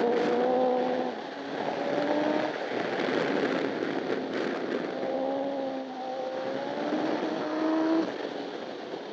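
Honda CBR1000RR inline-four superbike engine at racing speed, heard from onboard the bike, its note climbing and breaking off every second or so as the gears and throttle change, over a heavy rush of wind.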